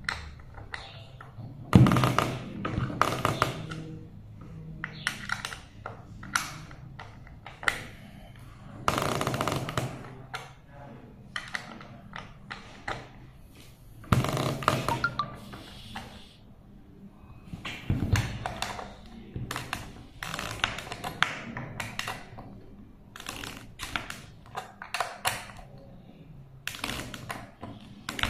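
Irregular clicks, taps and knocks of hands working on a plastic dome-type fiber optic splice closure while fastening the screws of its clamp, with a few louder thuds and short rustles of handling.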